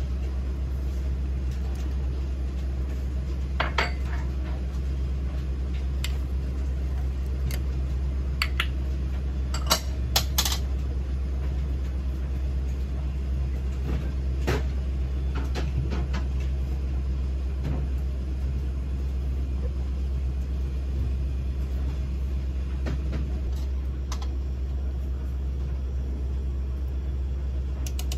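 Cooking at the stove: a few short clinks and knocks of utensils and chopped onion going into a pot of stew, the sharpest a quick cluster about ten seconds in, over a steady low hum.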